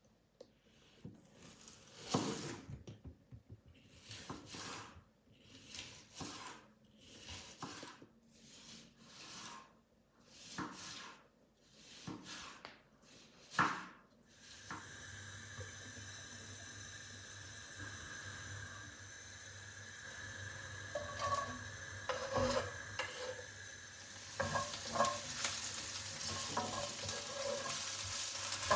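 A run of separate scraping strokes, about one a second, as vegetables are cut or grated. From about halfway, vegetables sizzle in hot oil in a frying pan with a low hum beneath, and the sizzling grows louder near the end while a utensil clinks and scrapes the pan as they are stirred.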